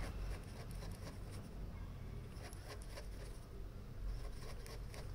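Pen scratching on paper in many short, irregular strokes, faint.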